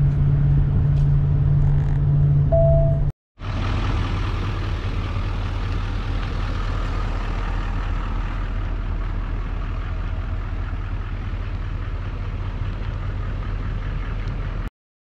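Steady road and engine drone inside a pickup truck's cab at highway speed, with one short beep about two and a half seconds in. After an abrupt cut about three seconds in, a quieter steady low rumble and hum runs until it cuts off near the end.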